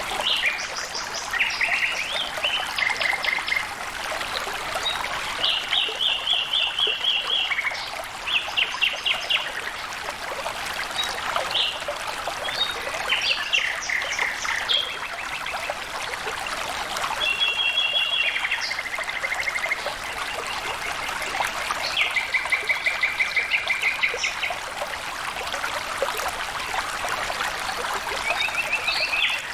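Water flowing steadily, with birds singing over it again and again in short, rapid trills of quick repeated notes.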